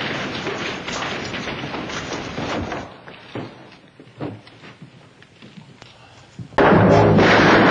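Clatter and a few thuds of a stuntman's fall onto a wooden porch in an old film soundtrack, busy for about three seconds and then sparser. Loud music cuts in suddenly near the end.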